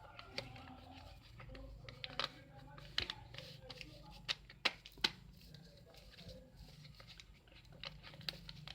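A sheet of paper being folded and creased by hand, with a run of sharp crackles, the loudest a few seconds in.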